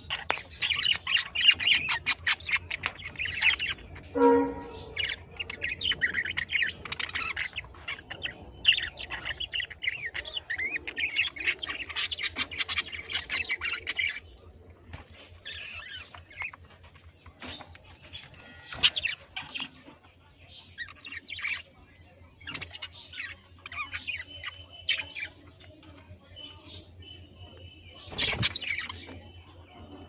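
A flock of budgerigars chirping and chattering in rapid, dense warbles. After about halfway the calls thin out to scattered chirps and a few short whistled notes.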